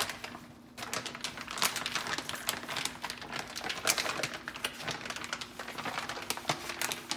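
Clear plastic zip-top bag crinkling and rustling as it is turned and squeezed in the hands, working marinade around the steaks inside. Dense crackling starts about a second in.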